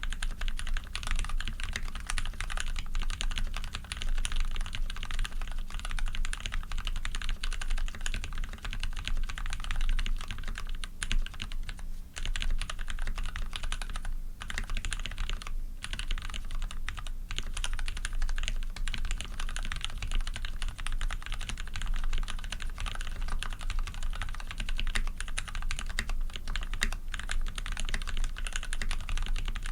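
Continuous fast typing on a PC Dolphin custom mechanical keyboard with lubed, filmed Cherry Retooled Black linear switches, a brass plate and PBT keycaps: a dense stream of keystroke clacks with a few brief pauses.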